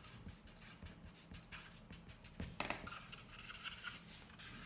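Faint scratchy strokes of handwriting, with a denser, squeakier run of strokes in the second half.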